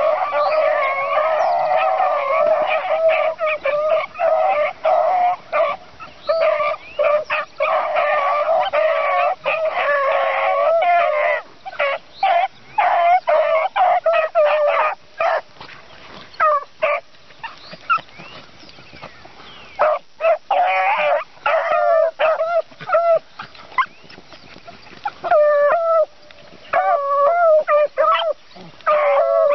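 A pack of beagles baying as they run a rabbit's track. Many voices overlap for about the first ten seconds, then the baying breaks into scattered single bays with short pauses and picks up again near the end.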